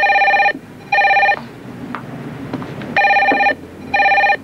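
Office desk telephone ringing in a double-ring pattern: two short rings, a pause of about a second and a half, then two more rings.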